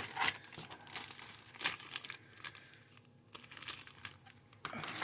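Clear plastic parts bags crinkling and rustling as they are handled, in short scattered crackles with a quieter lull around the middle.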